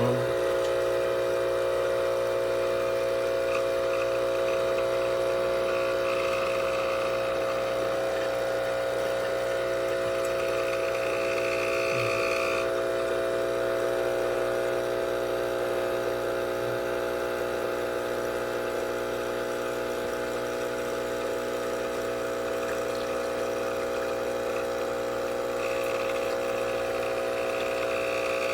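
ChefWave Káva capsule espresso machine's pump humming steadily as it brews a large cup. A higher tone joins in twice, from about six to twelve seconds in and again near the end.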